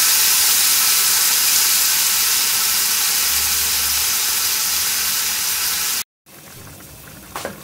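Whole beef tenderloin (filet mignon) searing in a frying pan, a steady loud sizzle. It cuts off abruptly about six seconds in, leaving a much quieter background.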